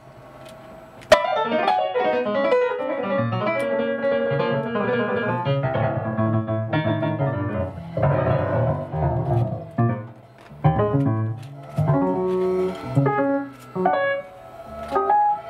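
Nord Piano stage piano playing: a quiet first second, then a loud chord and a stretch of dense chords and runs, breaking into short, separate chords in the last few seconds.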